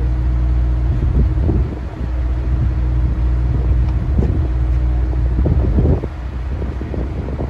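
An engine running steadily at idle, a low even hum, with wind buffeting the microphone and occasional small knocks.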